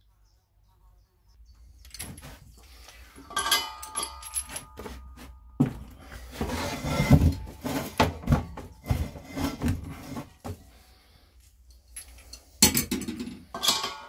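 Hands handling a propane bottle's metal collar and brass valve while fitting a regulator: irregular clicks, knocks and short ringing metallic clinks, starting about two seconds in, with a sharp cluster of clinks near the end.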